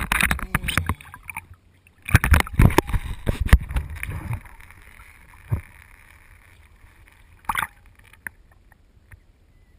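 Lake water splashing and sloshing against a handheld camera held at the water's surface, in irregular bursts. The splashing is loudest from about two to four and a half seconds in, then quieter, with a couple of single splashes near the end.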